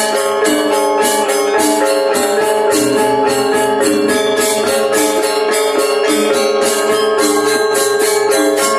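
Balinese gamelan ensemble playing, with the reong's row of small kettle gongs ringing out in fast note patterns over sustained metallic tones. A steady quick pulse of bright, jingling metal strokes runs through it.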